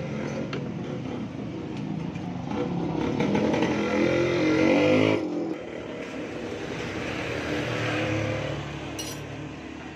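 A small motorcycle engine running close by revs up to a peak about five seconds in and drops off sharply. It then rises again more gently and eases down, with a brief click near the end.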